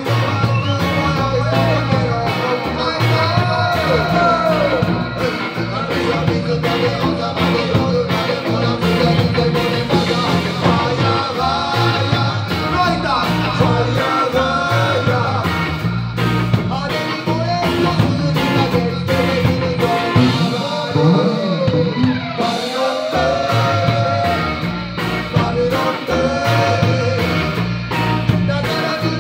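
Live band playing a song: electric guitars, bass guitar and drum kit with a steady beat, and a man singing the melody into a microphone.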